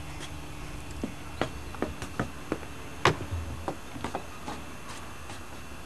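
A series of irregular light clicks and knocks, about a dozen spread over a few seconds, the loudest about three seconds in.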